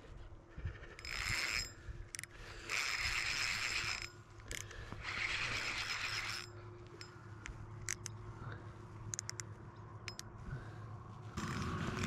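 A fishing reel at work while a hooked carp is brought in: three bursts of mechanical whirring, each a second or so long, with scattered light clicks after them. A steadier rushing sound starts near the end.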